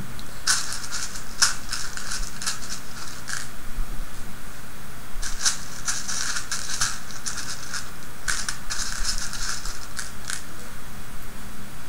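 Small plastic snap rivets clicking and rattling against each other and the sides of a plastic tub as a hand rummages through them, in three bursts with short pauses between.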